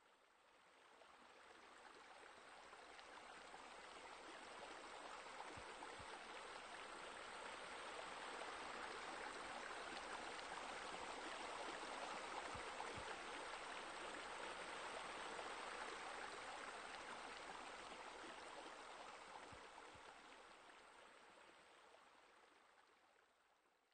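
Faint running water, an even splashing hiss like a waterfall or stream, swelling in over the first several seconds and fading away near the end.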